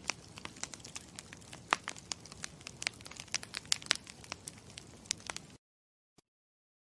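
Campfire crackling, with many irregular sharp pops over a low steady hiss; the sound cuts off suddenly about five and a half seconds in.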